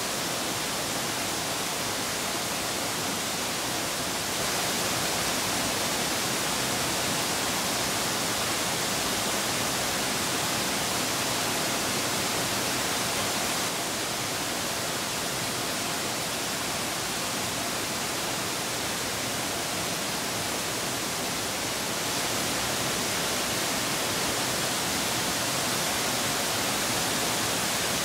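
Steady rush of flowing water, a constant hiss of a mountain stream, stepping slightly louder or softer a few times.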